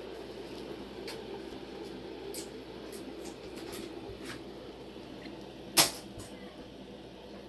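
Several fidget spinners spinning on a wooden table, making a steady whir, with scattered light clicks and one sharp click about six seconds in.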